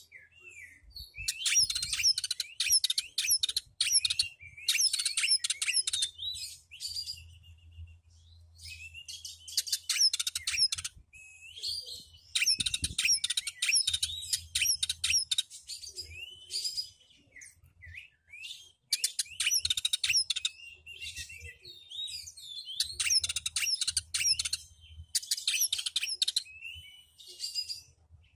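Oriental magpie-robin singing: loud bursts of rapid, chattering notes, each a second or two long, with short whistled slurs between them and a few brief pauses.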